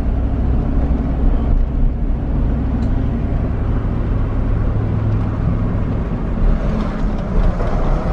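Car engine and road noise heard from inside the cabin, a steady low rumble.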